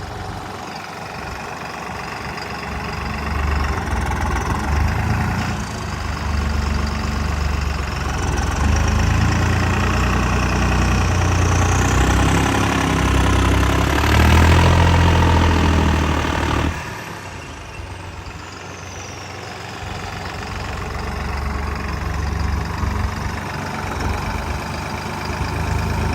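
Tractor diesel engine working hard under load, growing louder over several seconds, then dropping back abruptly about seventeen seconds in before building up again.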